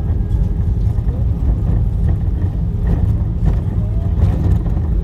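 Airbus A320-family airliner rolling out on the runway after touchdown, heard from the cabin: a loud, steady, low roar of the wheels and engines, with a few short knocks scattered through it.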